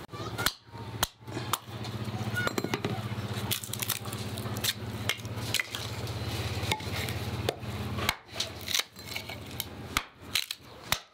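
Small hatchet chopping and splitting firewood into kindling on a wooden chopping log: a series of sharp chops and cracks, roughly one or two a second, with a low steady hum underneath for several seconds in the middle.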